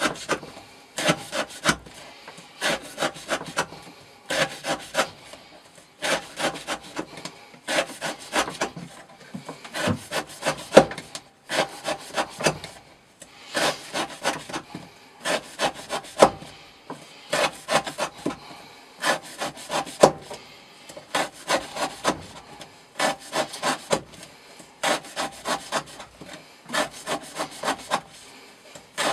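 Knife blade sawing through rope, cut after cut: each cut is a quick cluster of rasping strokes, and a new one comes every second or two.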